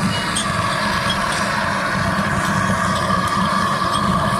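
Steady rushing noise of a gas burner firing under a large aluminium pot of tea on the boil.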